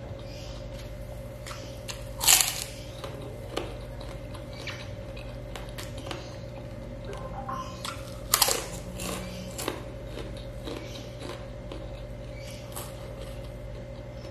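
Close-up chewing and biting of a mouthful of rice eaten by hand, with small clicks throughout and two loud crunching bites, about two seconds in and again past eight seconds, over a steady low hum.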